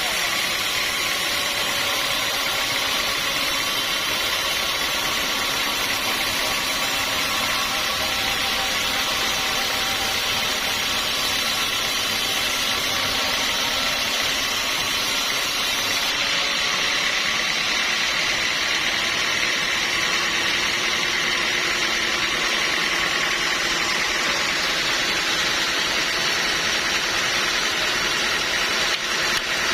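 Sawmill machinery running steadily: a continuous engine-like drone with several steady whining tones. The highest hiss drops away about halfway through.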